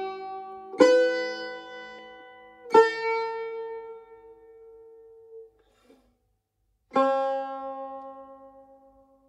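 Tar (Persian long-necked lute) playing in G quarter-sharp: single plucked notes, struck about a second in, near three seconds and near seven seconds, each ringing out and slowly fading, with a short silent gap before the last.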